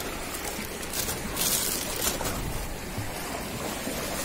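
Small waves washing up on a sandy shore: a steady hiss of surf that swells briefly about a second and a half in.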